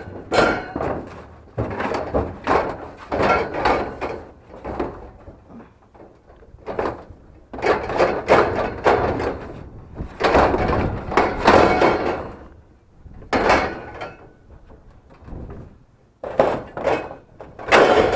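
Scrap being shifted into place in a trailer: hard objects scraping and knocking in a string of uneven bursts a second or two long, with short pauses between.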